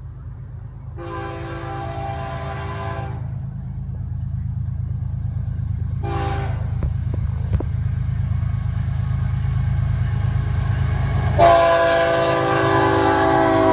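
Air horn of an approaching Florida East Coast GE ES44C4 diesel locomotive sounding for a grade crossing: a long blast, a short one, then a long, louder blast near the end. Under it, the low rumble of the locomotives' diesel engines grows steadily louder as the train nears.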